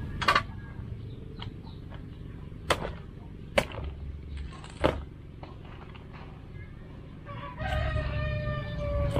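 A large knife chopping into a young jackfruit: four sharp strikes spread over the first five seconds. Near the end a rooster crows, one long call that falls slightly in pitch.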